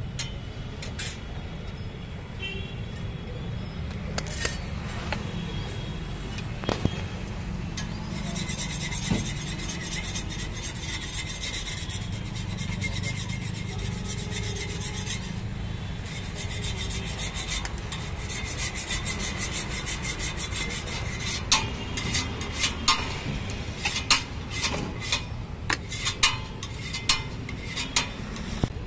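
Cheese being grated on a hand-held metal grater: a fast, steady rasping scrape. In the last several seconds come a run of sharp clicks and taps.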